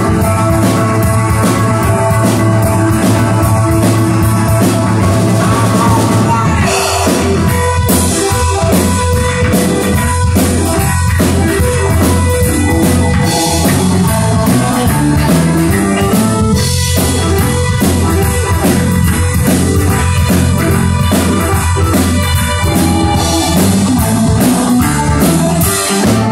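Live rock band playing loud: electric guitars, bass guitar and drum kit. The arrangement changes about six seconds in, and the music breaks off at the very end as the closing song finishes.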